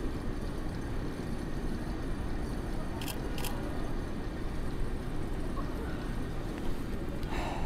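Steady city street noise with a low traffic rumble. Two quick camera shutter clicks about three seconds in, under half a second apart, from a Canon 5D Mark III DSLR.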